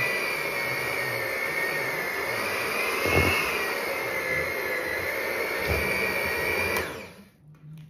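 Electric mixer running steadily as it beats thick peanut butter cookie dough, with a couple of dull knocks, then switched off about seven seconds in.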